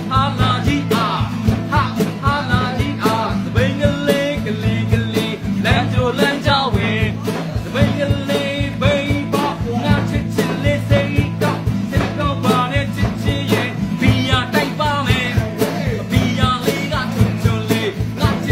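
A man singing a song while strumming an acoustic guitar in a steady rhythm.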